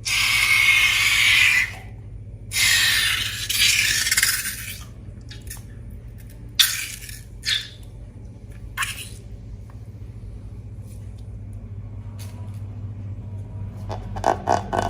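Two long hissing rushes of noise, then a few sharp snaps, then a fast run of ticks about four a second starting near the end.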